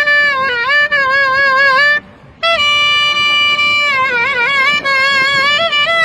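Clarinet playing a slow melody with a wavering vibrato on held notes. It breaks off briefly about two seconds in, as for a breath, then carries on.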